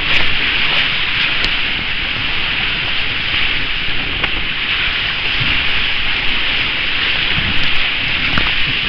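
Water rushing along a water-slide flume under a rider's tube, heard from a camera riding on the tube as a steady hiss. It grows louder with splashing near the end as the tube hits the run-out.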